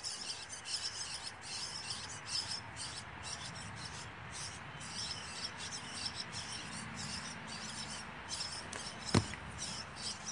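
One thud about nine seconds in as a person lands a wall flip off an air-conditioner unit onto wet grass, over a steady high, flickering hiss.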